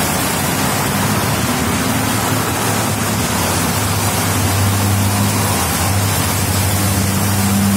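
Steady rushing hiss of rain and floodwater, with truck engines running as a low hum beneath it that grows stronger in the second half.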